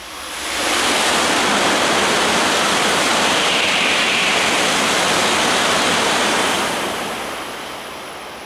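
Shinkansen bullet train passing through the station at full speed: a loud rush of air and wheel noise that builds within about a second, holds steady for about six seconds, then fades as the train clears.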